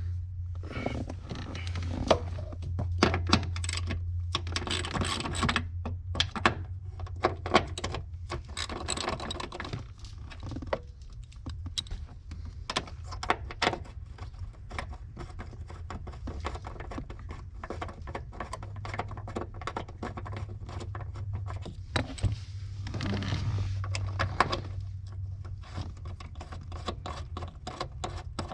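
Ratchet and 10 mm socket clicking in quick runs of ticks as the two bolts holding the hood release handle are backed out, with small metallic rattles of tool and bolts, over a steady low hum.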